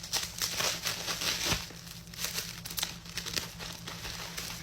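Packing material inside a mail-order box crinkling and rustling as it is handled and pulled out, with many small crackles throughout.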